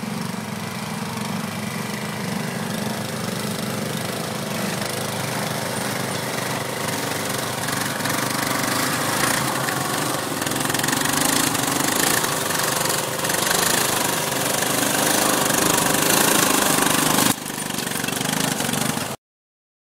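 Yamaha Kodiak 400 ATV's single-cylinder engine running as it pulls a loaded grapple-loader trailer, growing louder as it comes close and passes. The sound drops and then cuts off suddenly near the end.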